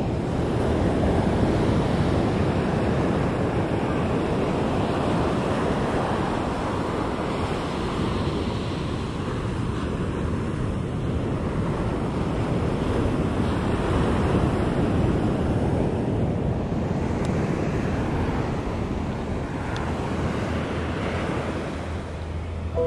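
Ocean surf washing on a beach, a steady rush that swells and eases slowly, with wind buffeting the microphone.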